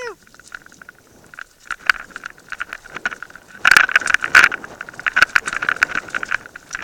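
Mountain bike rattling and clattering as it rolls down a rough, rutted dirt track, with a burst of heavier clatter about four seconds in.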